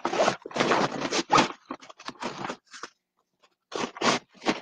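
Stand Tall insert being pushed down into a fabric Large Utility Tote: irregular rustling, scraping and crinkling of fabric and stiff panels. The sounds come thickest in the first second and a half, pause for about a second, then return briefly near the end.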